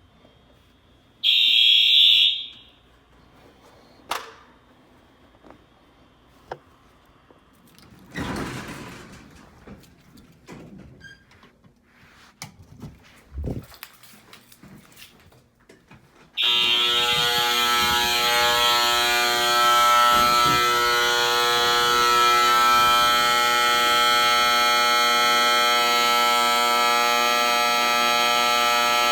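Fire alarm horns: one short horn blast about a second in, a few scattered knocks and clicks, then about halfway through the horns start sounding together with a steady, piercing tone that does not pulse.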